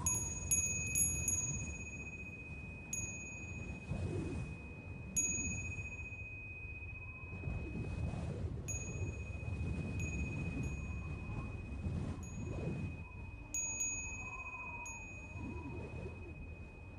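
Soft chime-like tinkling: scattered high pings that ring out, over a thin steady high tone and a low rumbling wash.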